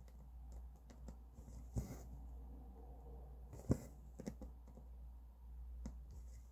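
Small scattered clicks and soft rustles of hand cross-stitching: the needle pushed through the stitching fabric and the thread drawn after it. There are a few sharper clicks, the loudest nearly four seconds in, over a faint low hum.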